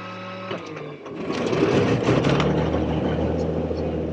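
Cirrus SR22T's turbocharged six-cylinder piston engine starting, heard from inside the cabin. A steady whine runs for about a second, then the engine catches, swells louder and settles into a steady idle.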